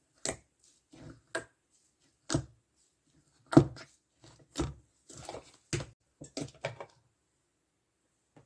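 Soft, chewy slime being pressed and poked by hand, giving a dozen or so sharp sticky pops and clicks at irregular intervals. They stop about seven seconds in.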